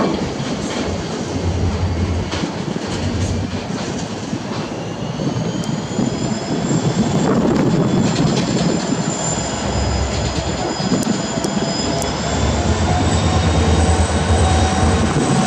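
RL-class diesel locomotive RL304 running under load as it draws nearer, its engine growing louder with a whine that rises in pitch from about six seconds in. Gusty wind buffets the microphone throughout.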